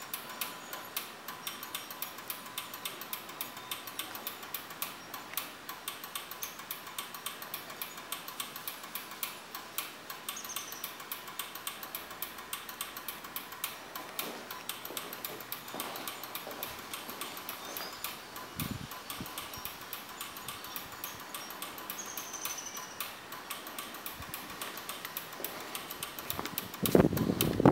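Rapid, steady ticking from a headlight wig-wag flasher switching the headlights back and forth, with a faint steady whine underneath.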